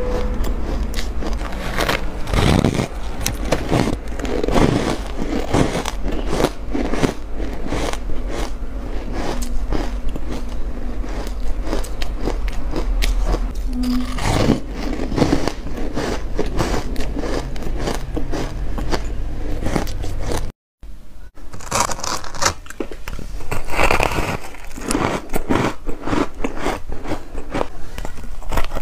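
Close-miked biting and chewing of powdery refrozen ice blocks: dense, crackly crunching, bite after bite. It cuts out briefly about two-thirds of the way through, then the crunching resumes.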